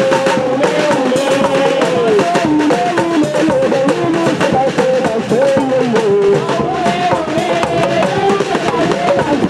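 Live drumming with quick, dense strokes, under a melody line that slides and wavers between notes.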